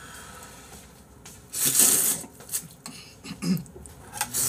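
A person slurping noodles: one long, loud slurp about a second and a half in, then a few shorter slurps.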